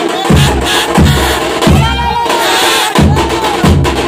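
Drums beating a steady, heavy rhythm for a tiger dance, about three beats every two seconds, with high sliding, rising-and-falling tones sounding over the beat.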